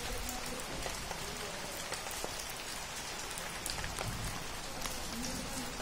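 Rain falling steadily on wet concrete and roofs: an even hiss with many scattered, individual drop taps.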